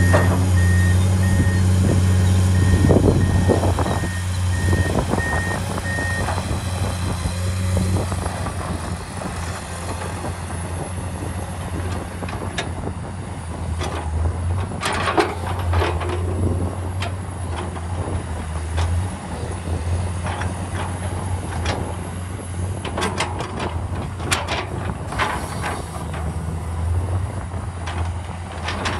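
Komatsu PC210 excavator's diesel engine running steadily under load, with its warning alarm beeping evenly for the first six seconds or so. Sharp knocks and scrapes come around the middle and again later as the bucket works the soil.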